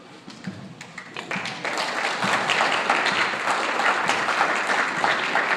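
Audience applauding: scattered claps about a second in, building within a second to steady, dense clapping.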